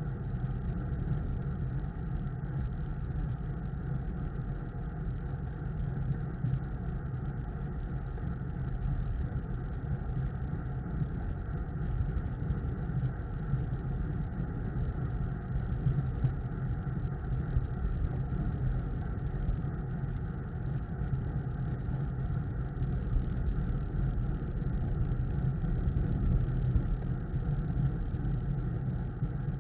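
Steady wind rush and road noise on a bicycle-mounted camera's microphone while riding at speed, a constant low rumble.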